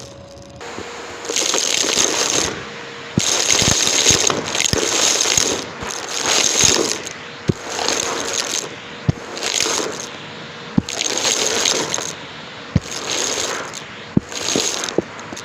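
Numatic James vacuum cleaner running with its tool pushed in repeated strokes, roughly one a second. Each stroke is a burst of rushing suction hiss with crackle as debris is sucked up, and sharp knocks of the tool come between the strokes.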